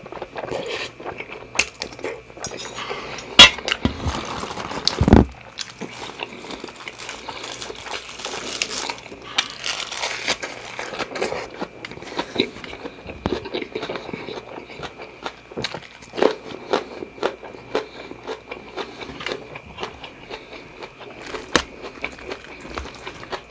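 Close-miked eating of seafood fried rice: chewing and biting with wet mouth sounds, and a spoon clinking and scraping on the plate. Two louder knocks come about three and a half and five seconds in.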